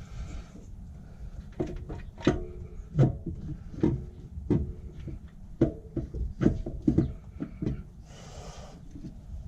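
Cylinder head clunking against the engine block as it is rocked and pushed down, about a dozen irregular knocks, each with a short metallic ring. It will not seat because a large bolt already fitted is in the way.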